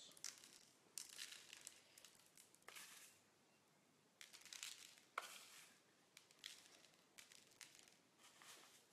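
Faint crackly rustling in short bursts, about one every second: sugar sprinkles rattled in a small clear tub and scattered by hand over buttercream-topped cupcakes in a cardboard box.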